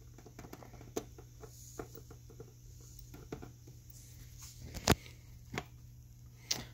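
Light clicks and taps of hands working a B&K Model 600 tube tester, with one sharp click about five seconds in, over a steady low hum.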